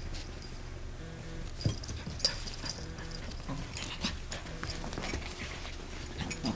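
A small dog and a cat play-fighting on carpet: scuffling and irregular knocks, with collar tags clinking now and then.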